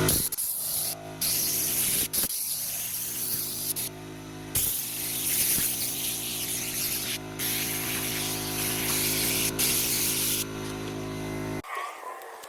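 A motor running steadily under loud bursts of spraying hiss, started and stopped about four times, as the mower deck is blasted clean; the hiss and the motor stop abruptly near the end.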